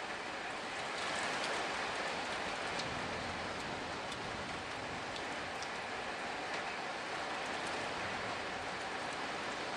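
Steady rain from a thunderstorm, falling evenly, with scattered individual drops ticking.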